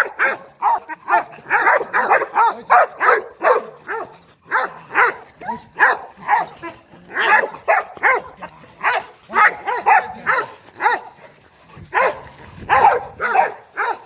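Boerboel and Rottweiler guard dogs barking aggressively in rapid volleys, about two to three barks a second, with brief pauses, as they are worked up against an agitator in protection training.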